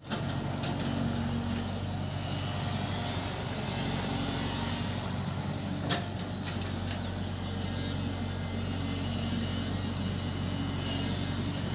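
Engine running steadily at a constant speed, with a single sharp knock about six seconds in. Short high chirps come and go over it.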